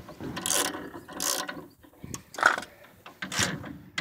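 Ratchet wrench clicking through a series of irregular back-and-forth strokes, about five in four seconds, as it turns the threaded rod of a coil spring compressor to back it off and let the front coil spring seat.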